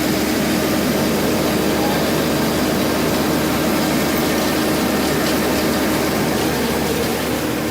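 Farm tractor engine running steadily with a constant hum, heard from inside the cab.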